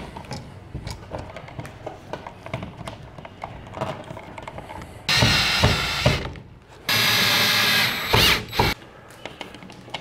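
Cordless drill/driver driving the two mounting screws of a wall outlet into its electrical box, in two runs of about one and a half and two seconds, a few seconds in. Before that, light clicks and rustling of the wired outlet being handled and pushed into the box.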